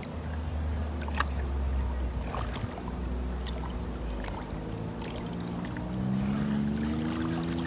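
Muddy water sloshing and running in a wooden gem-mining sluice flume as a screen box of sand and gravel is shaken in the current, with small knocks of the wooden frame. A steady low hum runs underneath, and a faint rising tone comes in near the end.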